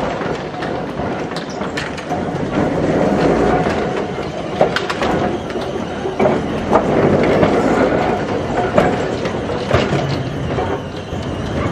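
Double-deck Glasgow Corporation tram 1068 running past at close range: a steady rumble of steel wheels on the track, with sharp irregular clicks as the wheels cross rail joints and points.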